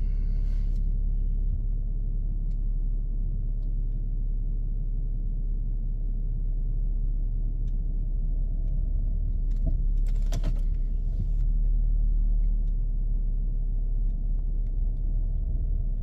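2011 VW Touareg diesel engine idling steadily, heard from inside the cabin, with the car held in reverse on the brake. A short burst of clicks about ten seconds in.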